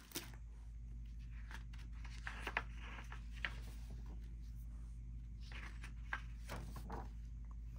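Pages of a hardcover picture book being turned by hand: soft paper rustles and light taps in two spells, over a faint steady hum.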